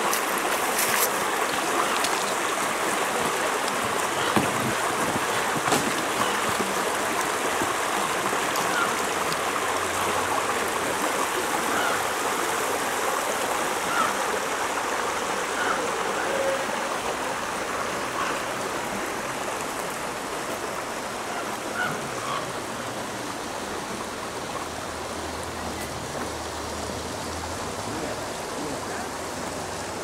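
Shallow, rocky mountain creek running over stones and small riffles: a steady rush of water that grows gradually fainter over the second half.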